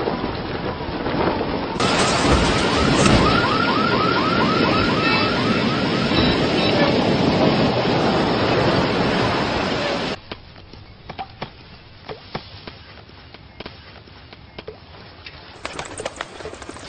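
Storm sound effects: loud, steady wind and rain noise, with a car alarm's short rising chirps repeating rapidly for several seconds. About ten seconds in the noise drops sharply to a much quieter bed with scattered ticks.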